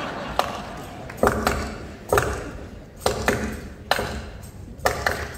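A beat of sharp percussive knocks, each with a short ring, coming mostly in pairs about once a second, setting the rhythm at the start of the song.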